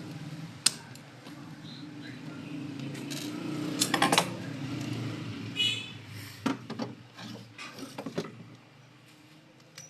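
Clicks and clatter of a laser toner cartridge's hard parts being handled: a sharp click early, a loud cluster of clicks about four seconds in, then a run of knocks, over a low steady hum that stops near the end.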